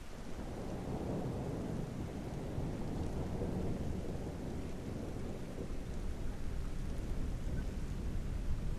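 Steady rain with a long, low roll of thunder that swells in at the start, is strongest in the first few seconds and rumbles on.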